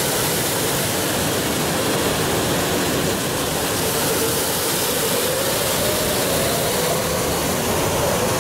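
Steady rush of a waterfall cascading into the ride pool right beside the Aquatopia boat, with a faint wavering hum underneath from about two seconds in.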